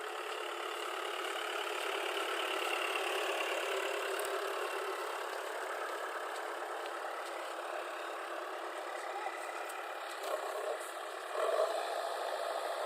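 A vehicle engine running steadily, briefly louder near the end.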